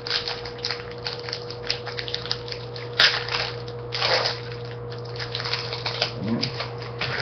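Trading cards being flipped through and sorted by hand: a steady run of soft clicks and slaps of card against card, with a sharper snap about three seconds in and a brief rustle just after. A steady low hum runs underneath.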